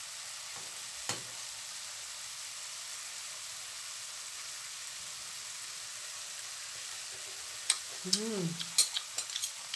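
Stir-fried bean sprouts and tofu sizzling steadily in a hot metal frying pan with the heat already switched off. A spoon clicks against the pan once about a second in and several times near the end, and a short hummed 'mm' comes about eight seconds in.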